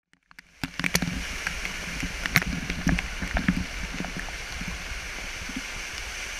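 Water splashing and sloshing around a kayak, with scattered small knocks and clicks, starting from silence about half a second in.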